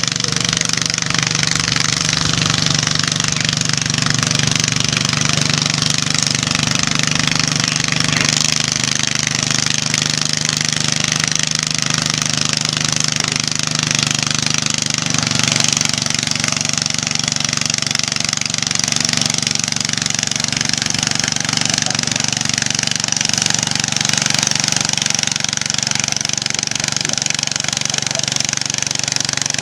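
Cub Cadet lawn tractor engine running steadily under load while pulling a weight-transfer sled; its note shifts slightly about eight seconds in and again around fifteen seconds.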